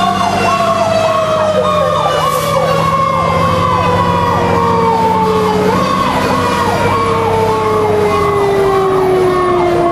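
Fire engine sirens heard from inside the cab: an electronic siren yelping in quick repeated sweeps, over the long, slowly falling whine of a Federal Signal mechanical rotary siren winding down.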